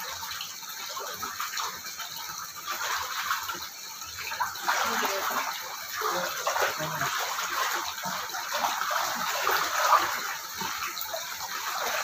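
Water lapping and splashing in a small stone pool close to the microphone, an irregular rushing and sloshing as a person bathing in it moves.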